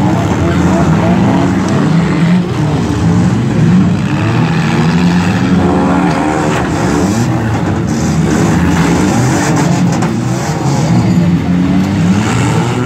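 Several front-wheel-drive demolition derby cars running and revving at once, their engine pitches rising and falling and overlapping.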